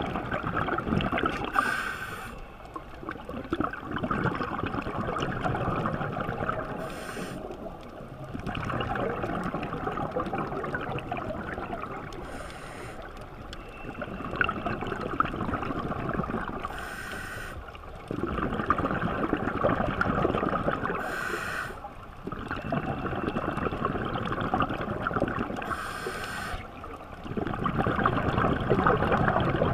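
Scuba regulator breathing underwater: a short hissing inhalation, then a long crackling rush of exhaled bubbles, repeating about every four to five seconds, six breaths in all.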